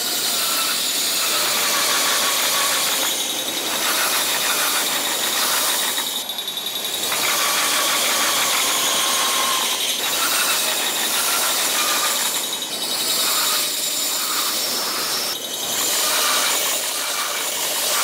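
Keikyū Line train passing over the level crossing: steady wheel-on-rail noise with squealing, which dips briefly several times. A level crossing warning bell rings throughout.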